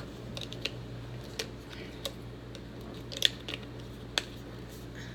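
Scattered light clicks and taps of measuring spoons against spice containers as spices are measured out, over a steady low hum.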